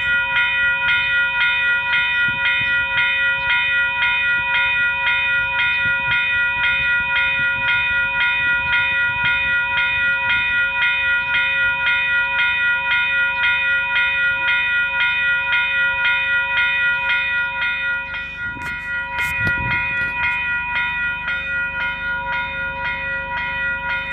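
Railway level crossing warning bell ringing in rapid, even strokes, about two a second, signalling that the crossing is active and a train is due. A brief low rumble sounds about three-quarters through.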